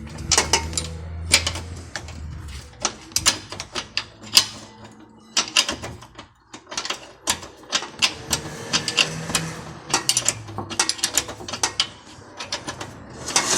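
Irregular clicking and metallic knocks of a wrench, likely a ratchet, being worked on the nut of a car's lower suspension control arm, to check whether the nut is loose.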